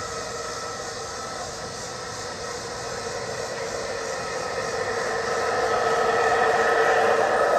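G scale model CSX diesel locomotives running along the track, a steady humming drone that grows louder as they approach.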